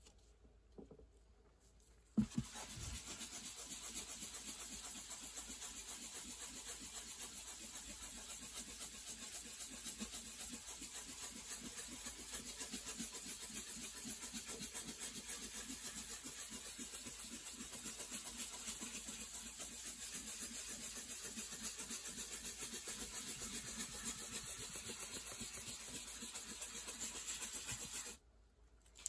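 A small pad rubbed rapidly back and forth over an acoustic guitar's wooden top, working in dye: a steady scrubbing rub with a strong hiss. It starts with a thump a couple of seconds in and cuts off abruptly near the end.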